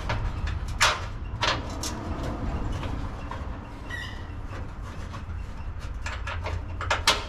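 Scattered metallic clicks and knocks of an ignition coil and its mounting bolt being handled as the bolt is started by hand into a freshly drilled hole, with a quick run of clicks near the end. A steady low hum lies underneath.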